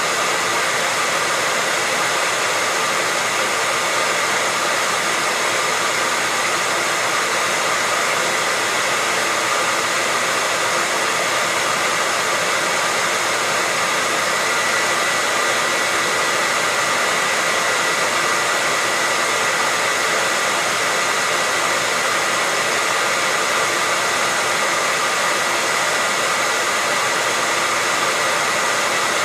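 Hair dryer running steadily: a continuous rushing hiss of air with a thin, steady high whine from its motor.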